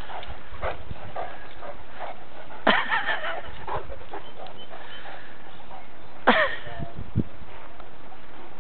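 Great Dane barking twice, about three and a half seconds apart, each bark dropping steeply in pitch.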